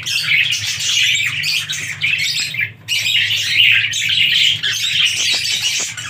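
A colony of budgerigars chattering and squawking continuously, dipping briefly a little before the middle, over a steady low hum.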